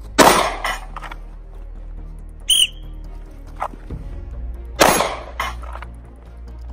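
Two handgun shots about four and a half seconds apart, each followed by a smaller crack about half a second later. Between them comes one short, high whistle blast: the signal to draw and fire a single round at a steel plate.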